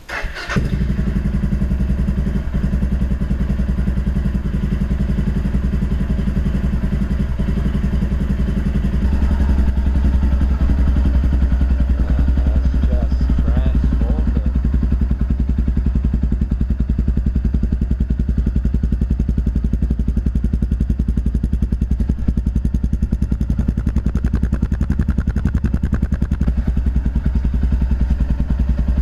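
Suzuki DR650's single-cylinder four-stroke engine running steadily through a Barrett aftermarket exhaust. It comes in suddenly near the start and gets louder about nine seconds in.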